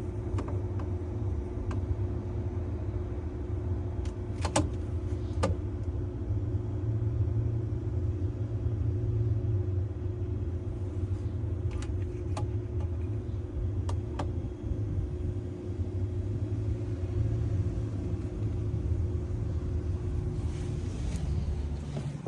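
Steady low machine hum with a constant mid-pitched tone, and a few scattered faint clicks.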